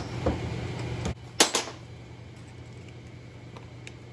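Steel pick clicking and scraping against a cut bearing outer race as it is pried out of a tractor's front-axle portal housing: a few sharp metallic clicks in the first second and a half, the loudest about a second and a half in, then only faint ticks. A steady low hum runs underneath.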